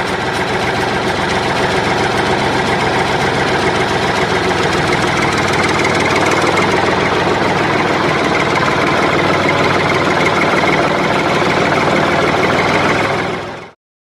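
Engine running steadily with a fast, even chugging, getting a little louder partway through, then cutting off abruptly near the end.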